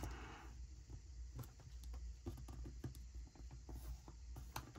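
Faint, scattered small clicks and taps of metal tweezers and fingertips on paper as a thin sticker strip is laid onto a planner page, with a brief paper rustle at the start.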